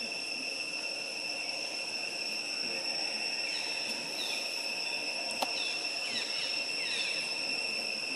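Steady high-pitched insect drone. Short falling chirps join it about halfway through, with a single sharp click a little later.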